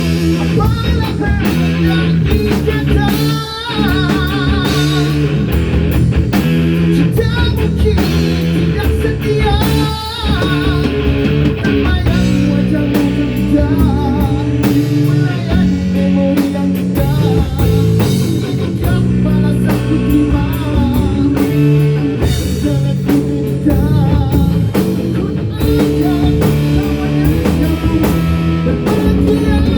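A live rock band playing: guitar over drum kit and bass, continuing without a break.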